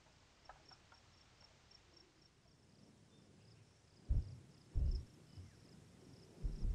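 Crickets chirping faintly and steadily, a short high chirp about four times a second. In the second half come a few dull low thumps, louder than the chirping.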